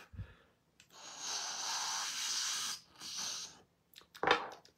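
Long hissing inhale through a glass dab rig, drawing on a dab of cannabis concentrate, then a shorter second draw and a sharp breath out near the end.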